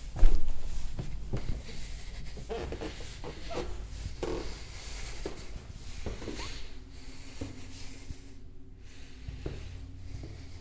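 A sharp thump just after the start, then scattered light knocks and rustling over a low steady hum.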